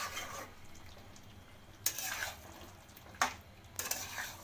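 Metal utensil clinking against a cooking pot: three sharp clinks, the first about two seconds in and the others about a second apart, over a faint steady background.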